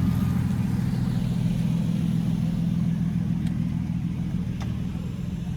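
A car engine running at a steady speed, a low even hum that neither revs up nor down and fades slightly toward the end.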